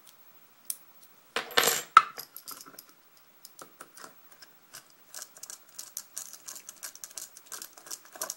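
Small metal clinks and clicks as a brass padlock cylinder and its keys are handled, with a louder metal clatter ending in a sharp click about two seconds in. After that comes a run of quick, light, irregular clicks as a Phillips screwdriver works a small screw in the brass cylinder.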